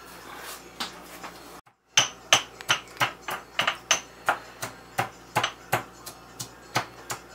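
Stone pestle pounding garlic in a white stone mortar, in sharp, regular strikes about three times a second. A brief dropout comes just before the steady pounding starts, about two seconds in.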